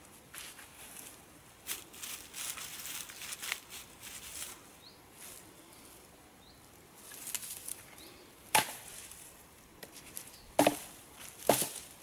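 Dead branches being handled and laid on a wood pile: rustling and scraping of sticks and dry grass, then sharp knocks of wood striking wood, one about two-thirds of the way in and two near the end.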